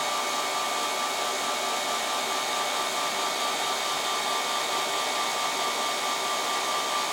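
Ceiling fan running at a constant speed: a steady whirring rush of air with a high, even whine on top.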